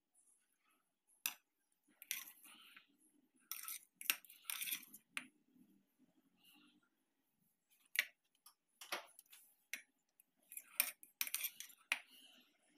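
Metal fork scooping and spreading egg mayonnaise filling, clinking and scraping against ceramic plates. The sound comes as scattered short clinks and scrapes with quiet gaps between.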